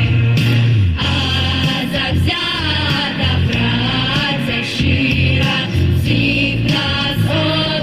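Vocal ensemble singing a pop-style song over an instrumental accompaniment with a strong bass line.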